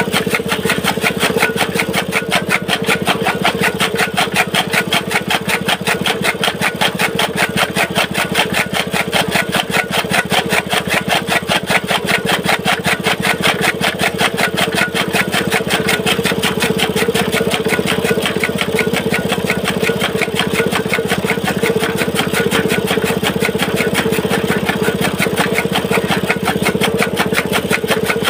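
Small petrol engine running steadily, belt-driving a flywheel chaff cutter (toka) that chops green fodder with a fast, even rhythm.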